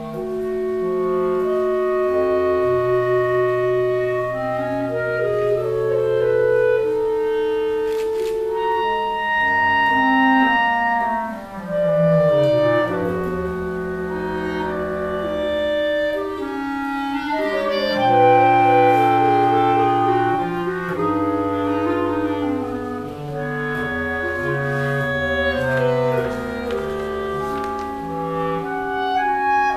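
A clarinet quartet of three clarinets and a bass clarinet playing a classical piece in several parts. The parts hold notes together over the bass clarinet's low line, with a falling line in the bass about twelve seconds in.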